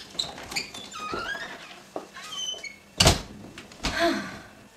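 Glass-paned French door being opened, its latch clicking and squeaking, then banging shut about three seconds in.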